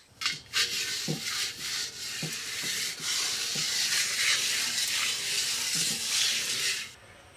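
Hands rubbing a wet paste over a copper pot's lid: a steady scrubbing hiss with scattered clicks and soft knocks, which cuts off abruptly near the end.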